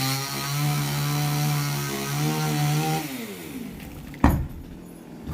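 Chainsaw running at a steady pitch while cutting a coconut palm, then winding down about three seconds in. A loud thud follows about a second later.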